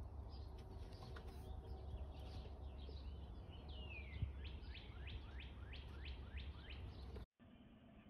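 Wild songbirds singing: scattered high chirps, then a long downward-gliding note followed by a run of about seven quick repeated down-slurred notes, about three a second, over a low steady rumble. The birdsong cuts off suddenly near the end, leaving only a faint steady hum.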